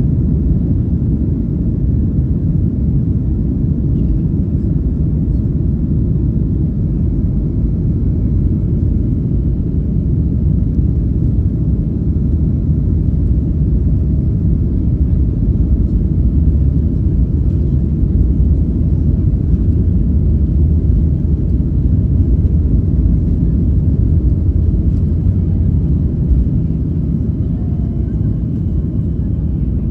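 Boeing 737 MAX 8 takeoff roll heard from inside the cabin: its CFM LEAP-1B turbofan engines at takeoff thrust and the wheels running down the runway make a loud, steady low rumble.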